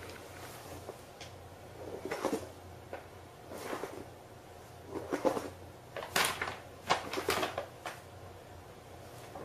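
Paper bag crinkling and rustling in a few short bursts as a cat moves around inside it, the loudest cluster about six to seven and a half seconds in.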